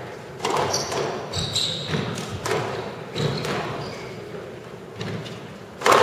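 Squash rally: the ball cracks off rackets and walls roughly every half second, with short squeaks of court shoes on the floor between shots. A louder hit comes near the end.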